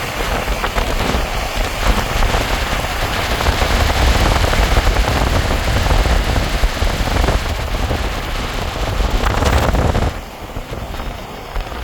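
Loud storm noise close to a violent tornado: a deep rumble under dense crackling, like heavy rain and wind battering the microphone. The noise drops off sharply about ten seconds in.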